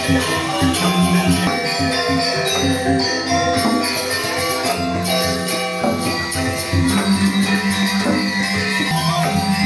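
Balinese gamelan music for the Rejang dance: ringing metallophone tones over a low gong-like drone, with a continuous jingling cymbal shimmer.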